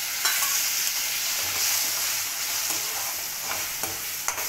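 Tomatoes and spices frying in hot oil in a steel kadhai, sizzling steadily. A few sharp metal clinks as a steel bowl and a perforated steel spatula knock against the pan while the powdered spices go in and are stirred.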